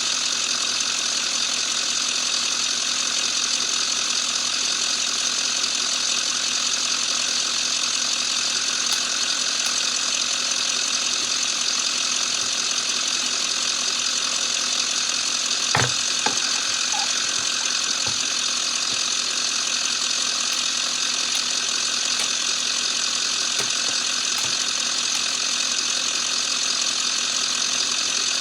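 Ambulance engine idling steadily, with one short knock a little past halfway.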